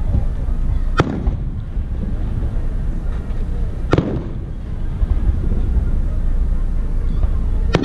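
Fireworks shells bursting: three sharp bangs about three seconds apart, over a steady low rumble.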